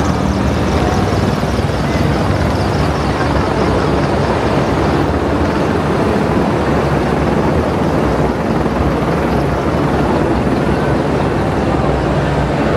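Loud, steady drone of heavy engines from the passing military parade, with a low hum that holds level throughout.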